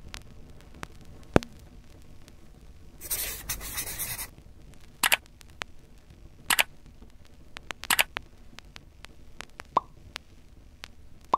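Sharp clicks and pops, one every second or two, from on-screen graphic transitions, with a noisy swish lasting about a second about three seconds in.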